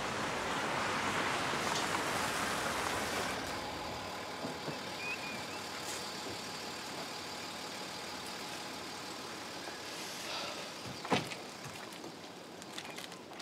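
A Land Rover SUV pulling in over paving with a steady rushing sound for the first few seconds, then running more quietly once stopped. A single sharp knock about 11 seconds in, a car door shutting.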